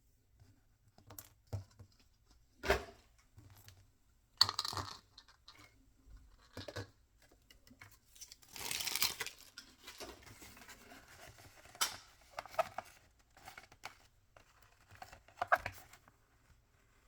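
Toy packaging being torn open and crinkled by hand, with scattered sharp clicks and taps of small plastic pieces. There is a longer rip lasting about a second, about nine seconds in.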